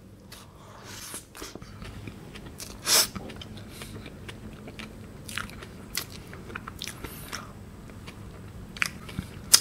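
Close-miked chewing and crunching of a Burger King Hershey's Sundae Pie, with a scatter of short crisp crunches from its crust; the loudest comes about three seconds in.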